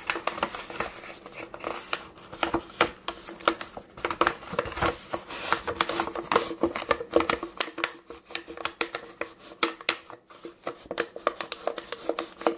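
Thin plastic shim sheets crinkling and crackling in quick, irregular clicks as they are rolled and pushed down around the voice coil of a subwoofer being reconed, centring the coil in the gap. A faint steady hum runs underneath.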